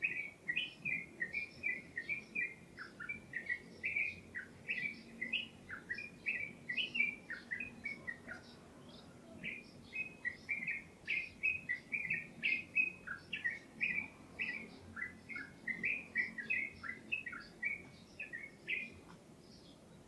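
A songbird singing long runs of quick, varied chirping notes, pausing for about a second midway before starting again.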